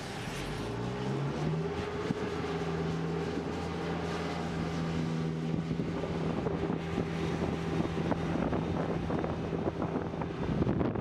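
Flight-deck towing tractor's engine revving up about a second in, then running steadily under load as it pulls out the carrier's arresting cable.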